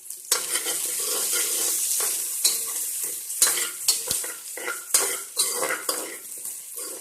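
Onion and spice masala sizzling loudly in hot oil in a pot as freshly added herbs hit it, with a metal spoon scraping and knocking against the pot as it is stirred. The sizzle jumps up about a third of a second in, and the spoon knocks come repeatedly through the second half.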